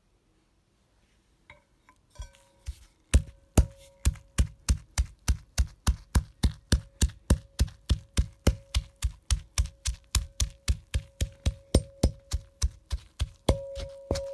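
Fresh woad leaves being pounded in a ribbed ceramic mortar (suribachi), a steady beat of about four knocks a second. It starts faintly about two seconds in and keeps an even rhythm, with a steady ringing tone beneath. This is the crushing of fresh leaves into a pulp for woad balls.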